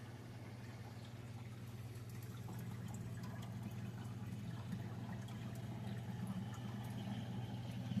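Aquarium filter running with a steady low hum and water trickling.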